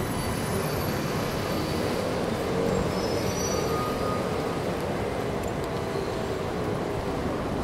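Steady city street traffic noise, a little louder about three seconds in.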